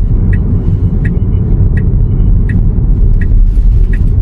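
Low, steady road and tyre rumble inside a Tesla electric car's cabin while it drives, with the turn signal ticking evenly about once every 0.7 seconds.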